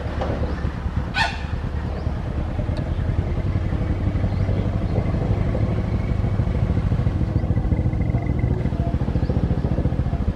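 Small motorcycle engine idling with a steady, rapid putter, with a brief high squeak about a second in.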